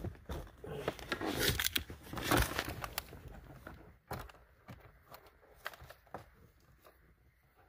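Plastic glove compartment being handled and worked loose from a car dashboard: short plastic clicks and knocks with rustling of the papers inside, busiest in the first three seconds, then only scattered faint clicks.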